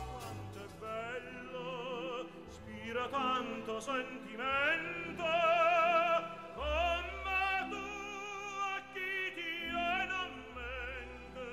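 Operatic soprano singing a classical aria, holding long high notes with wide vibrato over instrumental accompaniment.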